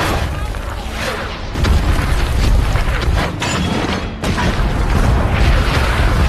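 Film battle sound of field howitzers firing and artillery shells exploding: a loud barrage of repeated booms.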